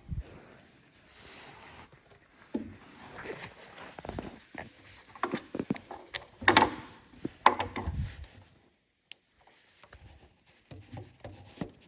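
Hands working a tail-light bulb socket and T15 wedge bulbs: scattered small plastic clicks, taps and rubbing, loudest a little past the middle.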